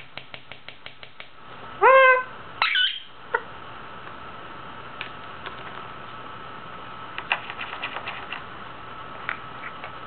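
Indian ringneck parakeet making runs of quick, sharp beak clicks. About two seconds in it gives one short, rising pitched call, followed at once by a briefer, rougher squawk.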